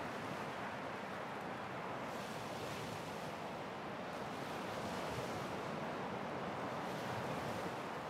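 Ocean waves breaking on a beach: a steady rushing surf, with the hiss of the wash swelling about two seconds in, again around the middle, and near the end.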